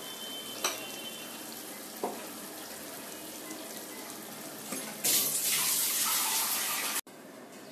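Spiced chicken and potatoes sizzling softly in a kadai on the stove, with a couple of light clicks. About five seconds in, a loud rush of running water for about two seconds as water is added for the curry's gravy, stopping abruptly.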